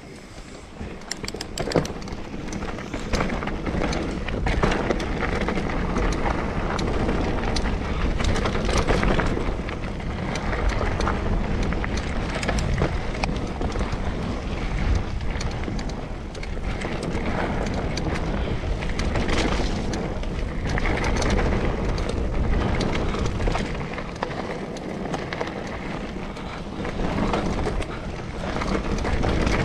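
Mountain bike riding down a dirt singletrack: wind buffeting the microphone, tyres rolling over dirt and dry leaves, and the bike rattling and clicking over bumps.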